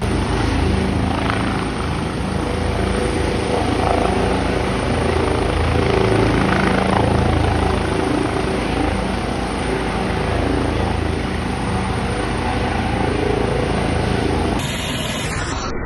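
Police helicopter hovering low, its main rotor and turbine engines running in a loud, steady drone with a low hum.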